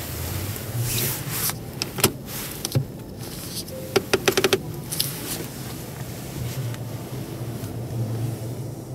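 Handbrake lever of a 2017 Volkswagen Polo being pulled, its ratchet giving a quick run of sharp clicks about four seconds in. A few separate knocks come earlier, over steady background hall noise.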